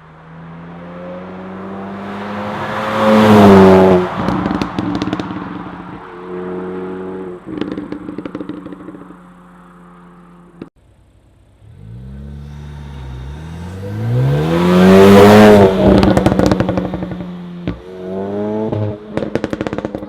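Ford Focus ST's turbocharged 2.0 EcoBoost four-cylinder revved twice, each rev rising steadily and then dropping off into a rapid, irregular rattle of exhaust pops and crackles from a crackle (overrun) tune. The second rev comes after a brief pause.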